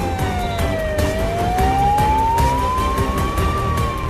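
Ambulance siren in a slow wail: the pitch falls for about a second, climbs slowly for nearly three seconds, then starts to fall again near the end.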